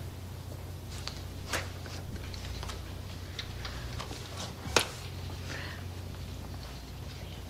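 Quiet classroom room tone with a steady low hum, broken by scattered soft taps and slaps of hands signing. Two sharper slaps stand out, one about a second and a half in and a louder one just before the five-second mark.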